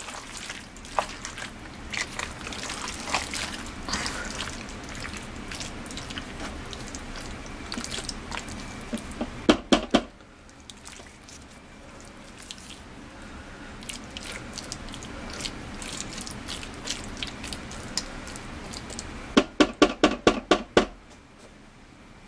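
A plastic spoon stirring a thick, wet mixture of lima beans, diced salt pork and condensed soup in a slow-cooker crock, a steady soft squelching and scraping. A few sharp knocks of the spoon on the crock come a little before halfway, and a quick run of about seven taps near the end.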